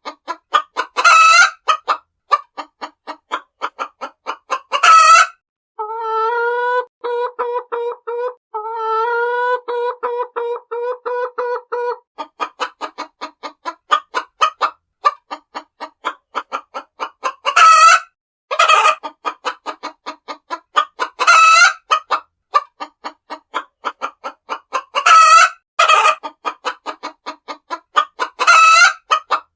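Hens clucking in rapid runs, broken every few seconds by loud squawking calls. From about six to twelve seconds in there is a long, drawn-out, wavering call in two parts.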